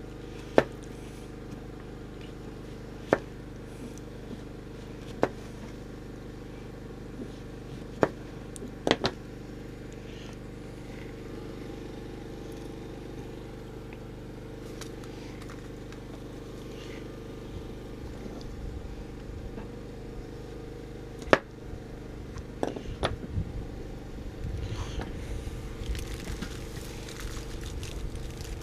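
A steady low mechanical hum, with a few sharp clicks scattered through it and a low rumble building up in the last ten seconds.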